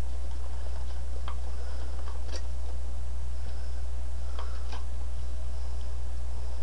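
A few light clicks of a plastic tool ticking against the slots of a plastic knitting-machine needle bed as it is cleaned, over a steady low hum.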